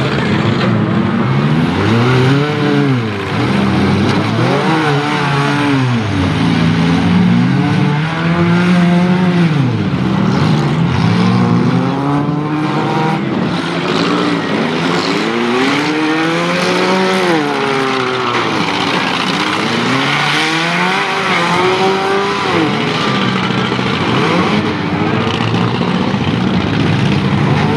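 Several four-cylinder compact-car engines revving hard, their pitch repeatedly rising and falling and overlapping, as demolition derby cars accelerate, reverse and ram one another.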